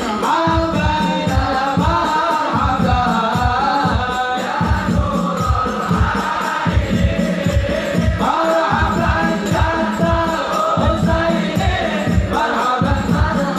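Group of men singing a devotional Maulid chant in unison, over a steady beat of frame drums.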